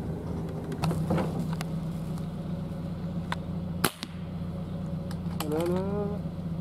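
A single sharp gunshot about four seconds in, fired at a rabbit caught in a spotlight, over the steady low hum of an idling pickup truck engine.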